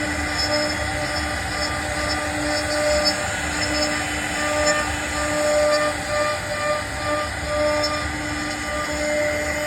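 CNC router spindle running steadily as it carves wood, a constant whine over the noise of the cutting.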